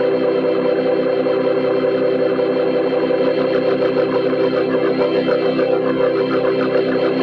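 Cartoon soundtrack warped by stacked audio effects into a dense, steady organ-like drone of many held tones at once.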